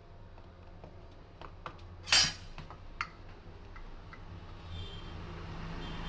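Dough being handled and rolled out with a wooden rolling pin on a marble counter: a few light knocks and one louder knock about two seconds in, then a soft rubbing from the rolling that grows louder near the end.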